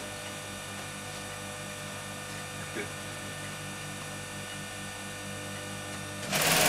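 A steady electric hum, with one faint click about three seconds in. Near the end an industrial sewing machine starts a short, loud run of stitching.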